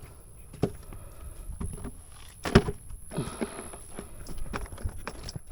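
Scattered knocks and thumps of handling on a small fishing boat, the loudest a single sharp knock about two and a half seconds in.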